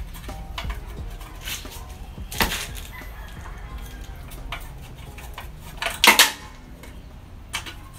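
Metal hand tools clinking and scraping on a small lawnmower engine as it is taken apart, with two sharper metallic clanks about two and a half and six seconds in.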